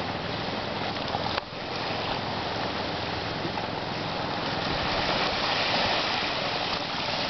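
Small waves washing onto the beach, a steady rushing noise that dips briefly about a second and a half in.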